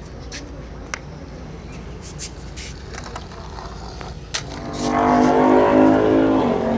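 Light clicks and knocks of plastic toy vehicles being handled, then from about four and a half seconds a louder, steady pitched hum that dies down near the end.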